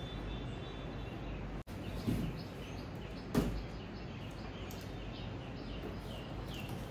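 Small birds chirping over steady room noise, with two dull thumps, the louder one about three and a half seconds in, as a stack of cardboard parcel boxes is handled.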